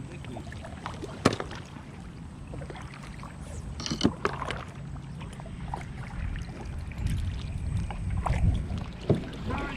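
Knocks and clicks of gear being handled in a kayak, the sharpest knock about a second in, over a low rumble.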